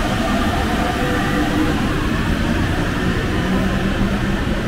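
Paris Métro train running: a steady rumble with faint whining motor tones.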